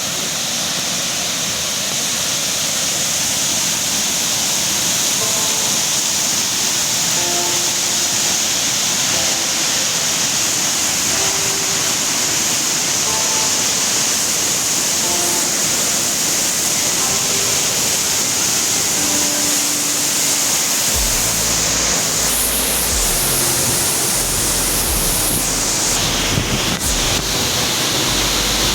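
Iveche Falls waterfall pouring down: a loud, steady rushing roar of falling water. About two-thirds of the way through, a low rumble joins in.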